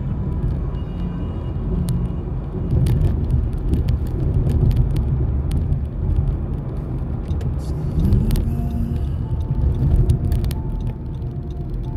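Road noise inside a moving car: a steady low rumble of engine and tyres, with a few light clicks and knocks. Music plays faintly underneath, from the car stereo.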